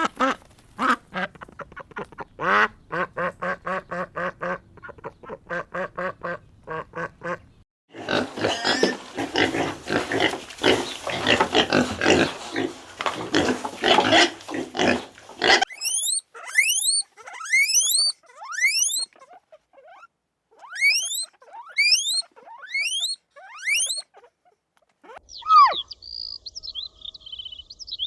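A run of animal calls: rapid, evenly repeated calls for the first seven seconds or so, then a dense, rough stretch of calling, then fast rising bird chirps over the second half, ending in a high whistled note.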